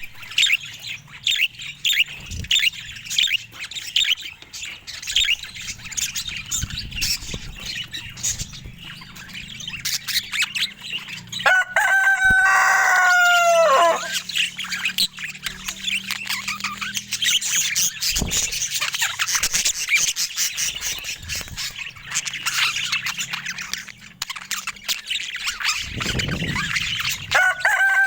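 Budgerigars chirping and chattering in quick, busy bursts. A long, drawn-out crowing call with a falling end sounds about halfway through, and another starts near the end.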